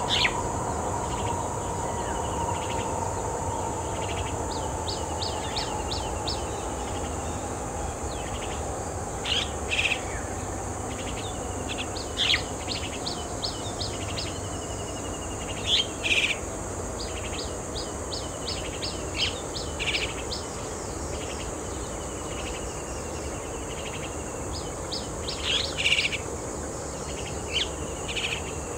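Wild birds calling from the surrounding greenery: runs of five or six quick high notes repeat every few seconds, with a few louder single calls in between. A steady high hiss runs underneath.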